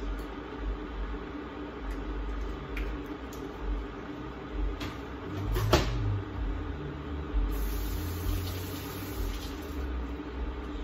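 Kitchen sounds over a steady low hum: a single sharp knock a little before six seconds in, then a sink tap running for about two and a half seconds before shutting off.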